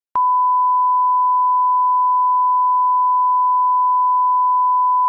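A steady 1 kHz line-up test tone, one pure unchanging beep: the reference tone that goes with SMPTE colour bars for setting audio levels. It starts with a small click just after the beginning and holds at an even level.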